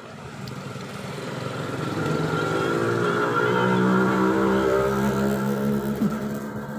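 A motorcycle engine running by, its hum swelling over a few seconds and easing off near the end.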